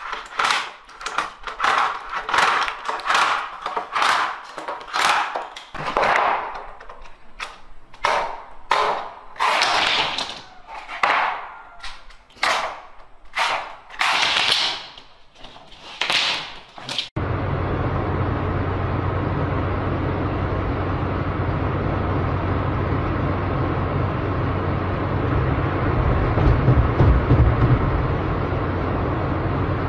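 Long bamboo pole being split lengthwise by hand, with a run of loud, sharp cracks, about one or two a second, as the split is driven along it. About seventeen seconds in it cuts off suddenly to the steady drone and hiss of a truck-mounted guardrail-washing machine at work, swelling a little near the end.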